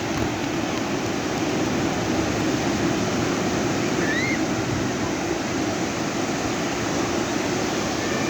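Ocean surf washing steadily onto a beach.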